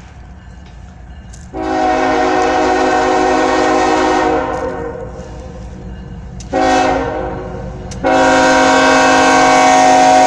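Norfolk Southern diesel locomotive's multi-chime air horn sounding a long blast, a short one, then another long one, over the low rumble of the train. The pattern is the end of the long-long-short-long grade-crossing signal.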